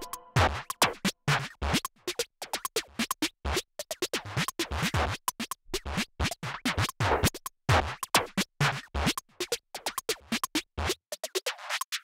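Electronic background music in a sparse break of short, irregular percussive hits. The bass drops out near the end.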